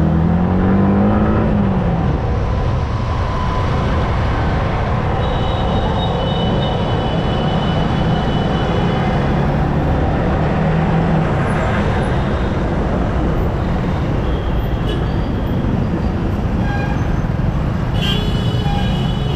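Yamaha R15M single-cylinder engine running while riding in traffic, its pitch rising over the first two seconds as it speeds up. It sits under steady loud wind and road noise.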